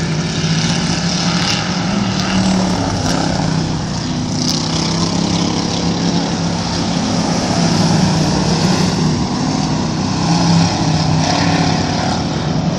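Dirt-track race cars' engines running at speed as a pack laps the oval: a steady, loud drone that shifts slightly in pitch as cars pass.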